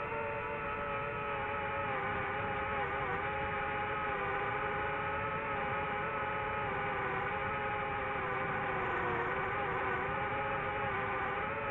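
DJI FPV quadcopter's motors and propellers whining steadily in flight, the pitch wavering a little and dipping briefly a few times.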